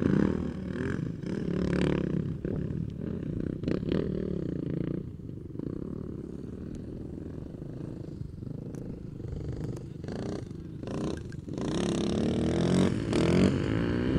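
450cc four-stroke off-road engine revving and easing off, rising and falling in pitch. It is loudest in the first few seconds and again near the end.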